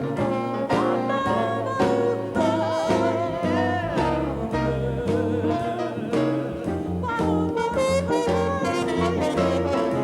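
Swing jazz band playing, with brass and saxophones over a walking bass line and a steady beat.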